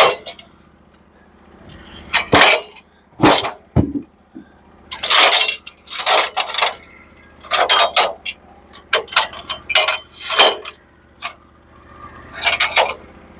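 A string of sharp clanks and knocks, about a dozen, some ringing briefly like struck steel, as timber and metal parts on a portable band sawmill are handled. Underneath is a low steady hum, likely the mill's engine.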